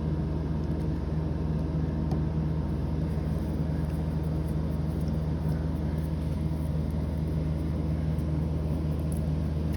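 A steady low hum with a few faint ticks.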